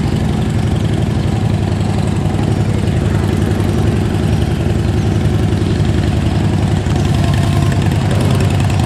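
A vehicle engine idling steadily: a low, even rumble that holds constant throughout.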